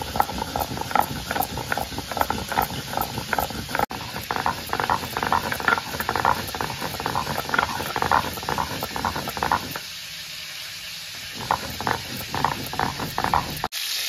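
Stone muller grinding cumin seeds on a flat stone slab (sil-nora), rasping back and forth at about three strokes a second, with a short pause before the strokes resume. Right at the end it cuts to the sizzle of frying.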